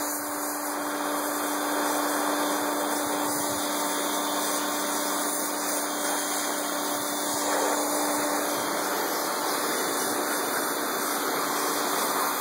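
Pressure washer running steadily, its water jet hissing against steel frame rails and blasting off loosened rust and paint after electrolysis.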